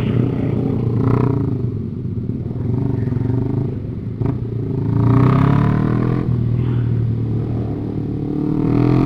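Motorcycle engine running on the move, rising in pitch as it is revved about five seconds in and again near the end.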